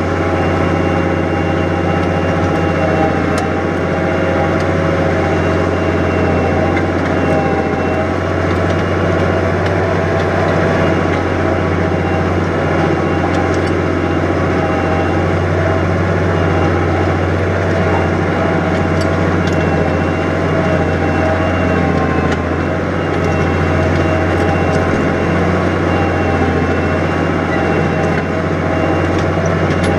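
New Holland 100-90 tractor's diesel engine running steadily under load while ploughing, a constant low drone with a faint high whine over it.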